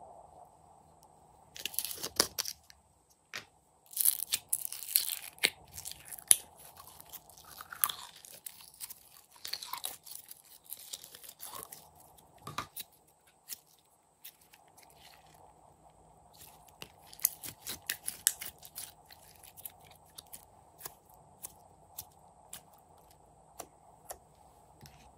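Clear green glitter slime being pulled from its plastic jar and pressed and spread by fingers: sticky crackling and popping clicks in irregular clusters, quieter for a stretch in the middle.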